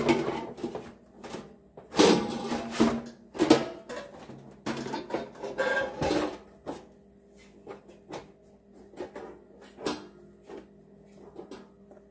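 Metal parts of a deep fryer clattering and knocking as they are handled and fitted together: the heating coil and control panel going into the oil pot of the stainless housing. The loudest clatters come in the first half, then lighter scattered taps.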